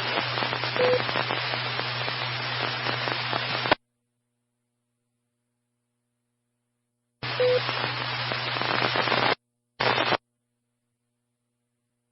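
Two-way radio static and hum from a scanner feed of an amateur radio net: an open, unmodulated transmission hisses and then cuts off abruptly about 3.7 s in, leaving dead silence. Another stretch of static follows about 7 s in, lasting two seconds, and there is a brief squelch burst near 10 s.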